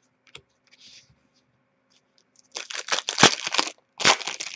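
Hockey trading cards being handled: a few light clicks, then about a second of quick scratchy flicking as cards slide against one another, and another burst near the end.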